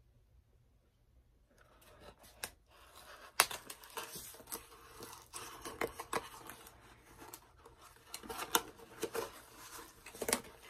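Cardboard toy packaging being opened by hand: after a second and a half of near silence, irregular rustling, tearing and sharp clicks of card and plastic.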